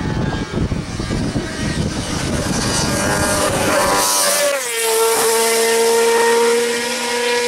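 Alfa Romeo 155 DTM's naturally aspirated V6 racing engine at full throttle as the car climbs through a hairpin. It runs rough and loud on the approach, drops in pitch as it passes close by about four seconds in, then holds a steady high-revving note as it pulls away.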